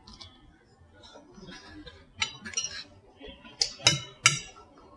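Close-miked eating sounds: chewing a bite of cauliflower-crust pizza, with a fork clinking and scraping against a salad plate in a handful of sharp clicks, the loudest just before and after four seconds in.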